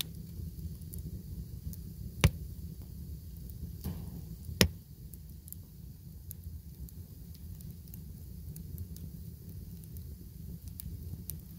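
Split logs burning in a stove's firebox: a steady low rumble of flame with small crackles throughout, and two sharp loud snaps of the wood, about two seconds in and again two seconds later.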